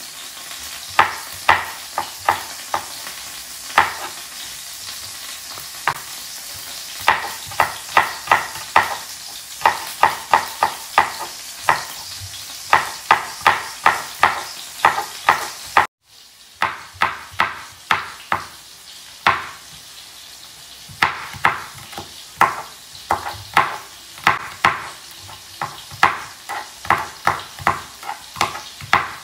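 Knife dicing vegetables on a cutting board: runs of quick, sharp chops, several a second, over a steady hiss. The sound drops out briefly about halfway through.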